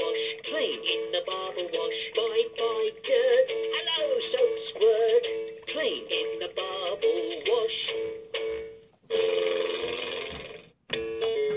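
LeapFrog talking puzzle toy playing an electronic tune with synthesized singing through its small speaker. Near the end the song gives way to a hiss of noise that fades and cuts off. After a brief gap a new jingle starts as the traffic-light button is pressed.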